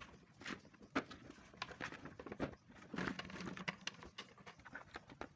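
Lanzones being peeled and eaten: soft, irregular small clicks and crackles of the skins being split and the fruit handled, close to the microphone.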